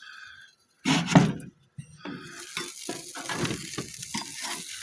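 A loud clatter about a second in, then hamburger patties sizzling and crackling in a frying pan.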